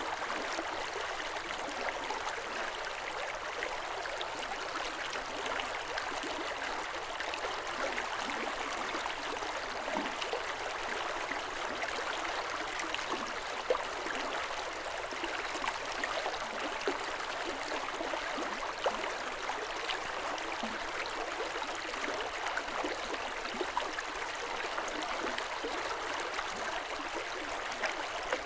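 River water running over stones, a steady rushing and babbling with small splashes and gurgles here and there.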